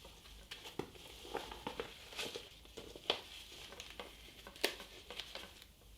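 Soft rustling and crinkling with scattered light clicks and taps, the handling noise of a blood pressure cuff being put on a patient's arm.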